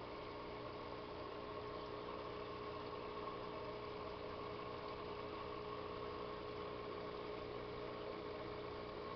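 Aquarium pump running with a steady hum over an even hiss of moving water.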